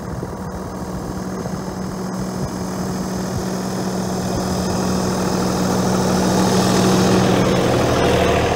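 John Deere compact tractor's diesel engine running steadily as it pulls a laser-leveling grading box over infield dirt, growing steadily louder as the tractor comes close and passes right by.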